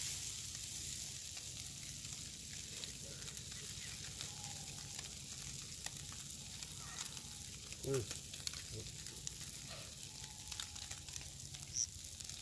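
Fish frying in a pan over a wood fire: a steady sizzle with scattered small pops and ticks.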